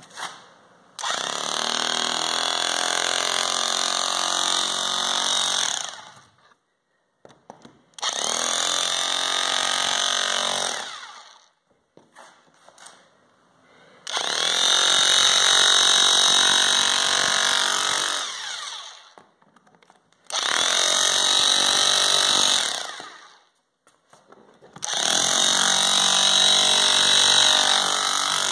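Hiltex 10513 electric rotary hammer in hammer-only mode, its pointed chisel bit breaking up a concrete floor. It runs in five bursts of a few seconds each, with short pauses between them.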